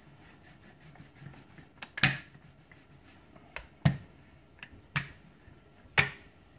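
Wooden rolling pin rolled back and forth over dough on a floured granite countertop: a faint rub broken by about six sharp clicks, roughly one a second, starting about two seconds in.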